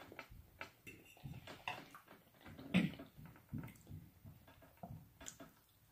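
Close-up mukbang eating sounds of fried chicken being chewed: wet chewing and lip smacks, an irregular run of small clicks and smacks.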